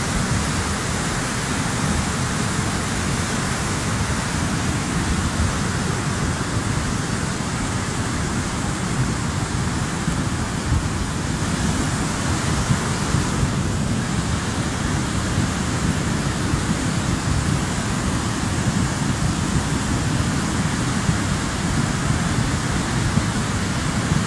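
Bastan mountain river in flood: fast, muddy water rushing over boulders, a loud, steady rush of water.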